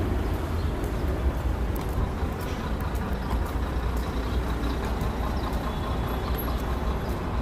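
Road traffic on a busy city street: a steady low rumble of passing vehicles.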